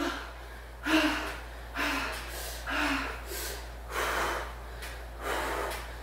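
A woman breathing hard from exertion on a stationary exercise bike, with forceful exhalations about once a second. The first few carry a short voiced grunt.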